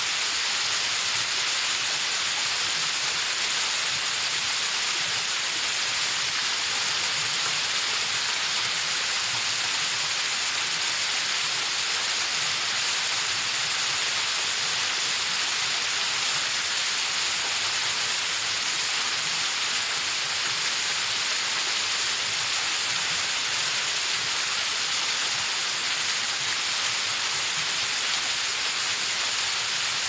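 A thin mountain waterfall splashing down onto rock: a steady, unbroken rush of falling water.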